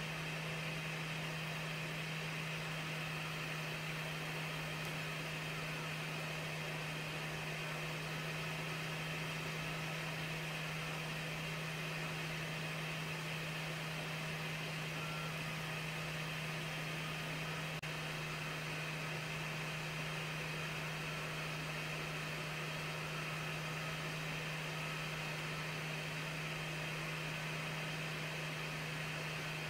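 RGB laser projector rig running: a steady low hum with a fainter higher whine over a constant hiss, unchanging throughout.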